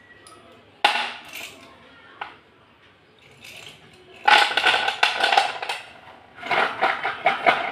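Slate pencils clinking and clattering as they are dropped and shuffled onto a plastic plate: one sharp clatter about a second in, then two longer runs of rapid clinks.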